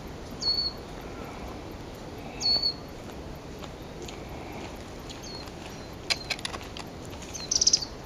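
Small wild songbird calling: two sharp high notes about two seconds apart, each dropping quickly in pitch, and a fainter third, then a run of dry ticks and a short, loud high chatter near the end.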